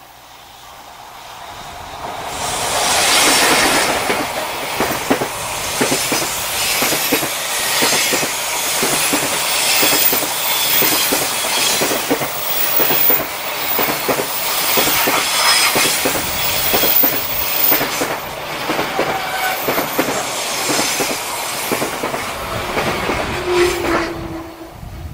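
JR Freight EF65 electric locomotive and its container freight train passing on a curve. The sound builds about two seconds in, then the long string of container wagons clatters over the rail joints in a steady clickety-clack, with some high-pitched wheel squeal. It drops away just before the end as the last wagon clears.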